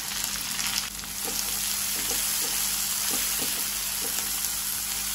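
Chopped onion sizzling steadily in hot sesame oil in a kadai, just added and being sautéed, with light scrapes of a spatula stirring it through the pan.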